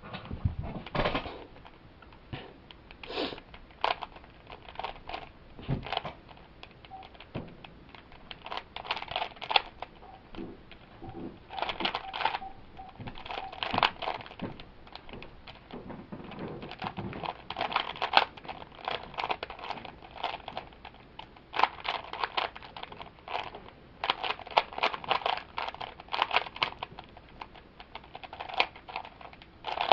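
3x3 plastic Rubik's cube being turned quickly during a solve: bursts of rapid clicking and rattling as the layers twist, broken by short pauses.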